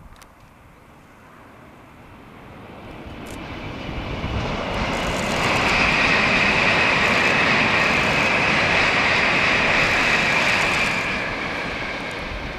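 A 16-car JR Central 700 series Shinkansen passing on a viaduct: a rushing noise swells from about two seconds in, holds loud for about five seconds while the train goes by, then fades away near the end.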